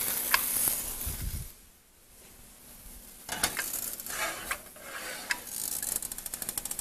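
A stainless pot of chicken stock is set on an electric stove. A frying sizzle fades in the first second or so, then come a few sharp metal knocks, and near the end a rapid run of fine clicks as the burner is turned on.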